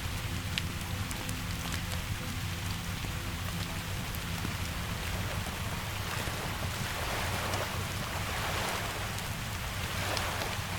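Steady rain mixed with a crackling wood fire, its sharp pops scattered through. The rain swells louder for a few seconds about two-thirds of the way through.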